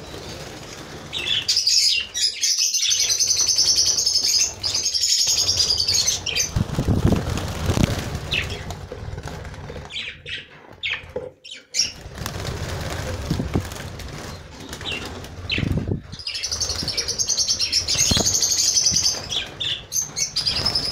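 A flock of budgerigars flapping their wings as they fly up around the aviary, with bursts of the birds' high, warbling chatter near the start and again toward the end.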